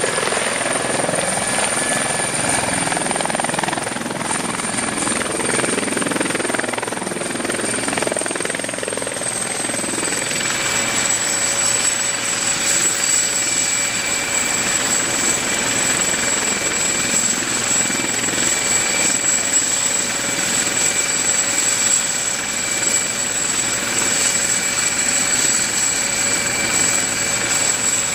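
Sikorsky S-76 twin-turbine helicopter running: first hovering, with rotor noise over a high steady turbine whine. About ten seconds in the sound changes to the helicopter sitting on the ground with its rotor turning, the whine a little lower and steady.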